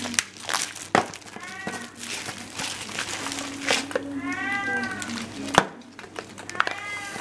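A cat meowing three times, the middle meow the longest, with a few sharp clicks and taps from a cup-noodle container being handled.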